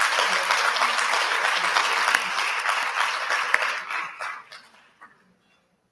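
Audience applauding, the clapping fading and dying away about five seconds in.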